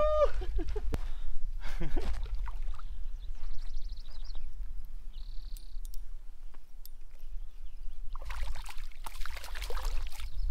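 Steady low rumbling noise on the microphone, with scattered faint rustles, a brief high trill about three and a half seconds in, and a stretch of hissy rustling near the end.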